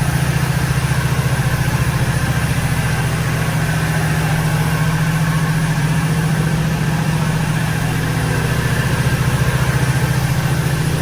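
1986 Oldsmobile Cutlass 442's 307 V8 idling steadily, quiet and smooth now that its exhaust-manifold leak has been sealed; it ticks over evenly, like a little sewing machine.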